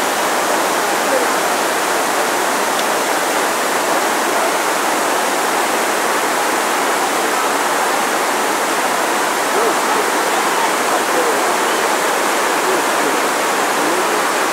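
Steady, loud rush of falling water from the 9/11 Memorial reflecting-pool waterfalls, with faint voices of people mixed in.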